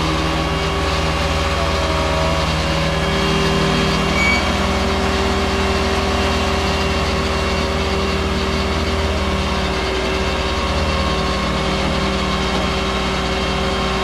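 Flatbed tow truck's engine running steadily to drive the hydraulics while the tilted deck is brought level, with a steady low hum and a constant whine above it. The sound shifts slightly about three seconds in and again near ten seconds.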